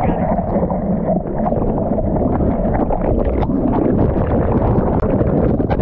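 Seawater rushing and splashing around a board-mounted camera in breaking surf, with wind buffeting the microphone; a few sharp knocks near the end.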